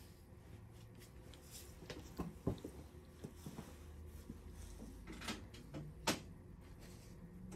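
Quiet handling sounds at a wooden, glass-fronted display cabinet: a few light clicks and knocks as the cabinet is opened and a miniature on its base is set on a glass shelf, the sharpest about five and six seconds in.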